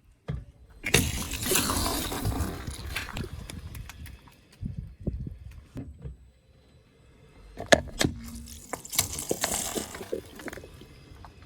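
Objects being crushed under a car's tyre: a long noisy crunch about a second in, then a sharp crack and a second crushing burst near the end.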